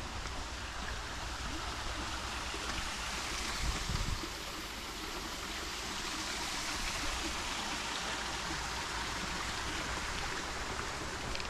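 Steady rush of water running in a roadside channel. A brief low buffet of wind on the microphone comes about four seconds in.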